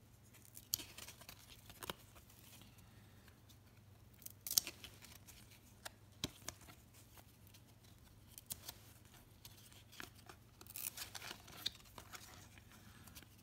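1993-94 Upper Deck basketball cards being flipped through by hand, stiff card stock sliding and snapping against card in faint, crisp flicks and swishes. The loudest flicks come about four and a half seconds in and again around eleven seconds in.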